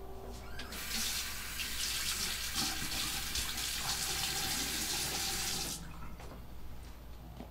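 Bathroom sink tap turned on about a second in, water running into the basin for about five seconds, then turned off suddenly.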